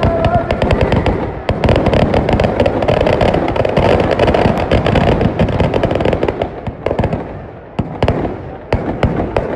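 Firecrackers packed in a burning Dussehra effigy going off in a dense, rapid crackle. The crackle thins to scattered single bangs over the last few seconds.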